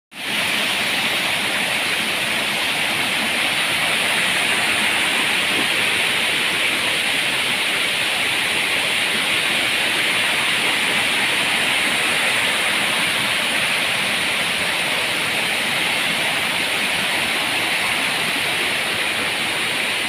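Waterfall and the shallow cascades below it pouring over rocks: a steady rush of water.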